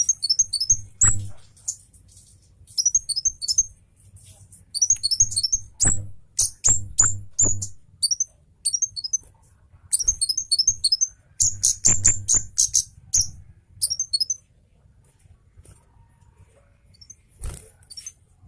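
A Kemade cabe Jawa flowerpecker singing in fast bursts of thin, high, downward-slurred notes, each burst a rapid string of repeated notes, with pauses between bursts and sharp clicks mixed in.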